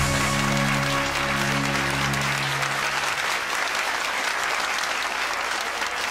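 The theme music ends on held notes that fade out about three seconds in, over a studio audience's applause, which carries on after the music has died away.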